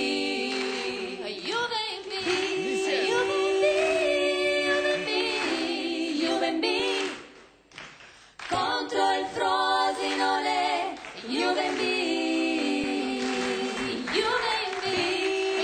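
Three women singing a cappella in close harmony, with a short break about seven and a half seconds in before they carry on.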